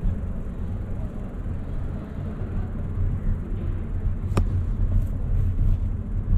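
Steady low, fluttering rumble of riding a bicycle: wind buffeting the microphone over road noise. One sharp click a little over four seconds in.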